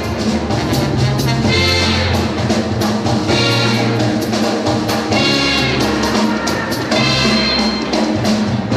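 Brass-led band music with drums, playing at a lively steady beat.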